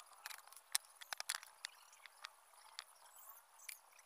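Hollow green bamboo pieces clicking and knocking lightly as they are handled and set down on a tabletop: sparse sharp clicks, most of them in the first second and a half, fewer after.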